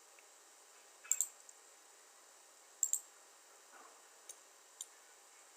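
Computer mouse clicking: two quick double clicks, then two fainter single clicks, over a faint steady hiss.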